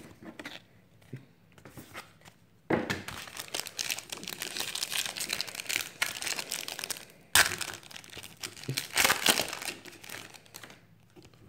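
Foil wrapper of a trading card pack crinkling as it is handled and torn open. The crinkling starts suddenly a few seconds in, with a sharp snap partway through, and dies down near the end.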